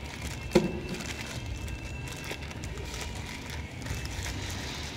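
Clear plastic wrapping crinkling and rustling as a shop-vac hose is handled and pulled from its bag, with one sharp knock about half a second in, over a steady low background rumble.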